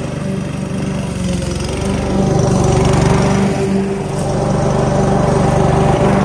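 Petrol walk-behind lawn mower running steadily while mowing grass, its engine hum growing louder about two seconds in as it comes close.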